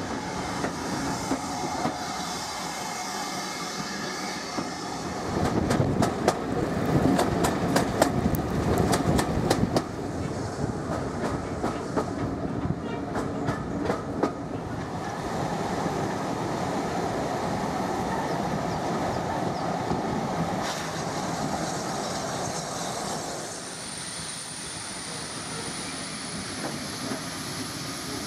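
Heritage railway carriage running along the track, heard from inside the coach: a steady rumble with wheels clicking over the rail joints. It grows louder with a quick run of sharp clicks several seconds in, and a thin high whine comes in near the end.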